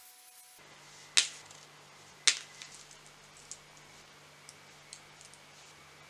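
Medicine-bottle caps used as numbered tokens, dropped one after another onto a flat surface. Two sharp clicks come about a second apart, the second with a short rattle of bounces, followed by a string of fainter, scattered clicks.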